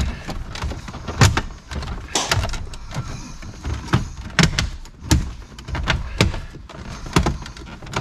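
Irregular knocks, clicks and clunks of hard plastic as the new double-DIN stereo head unit and its dash trim are pushed and seated into the dashboard.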